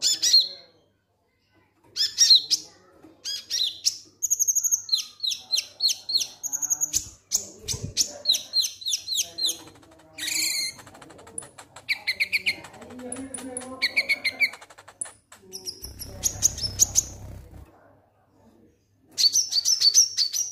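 Konin sunbird singing its 'ngek ngek' song: phrases of fast, high, down-slurred chirps with short pauses between them.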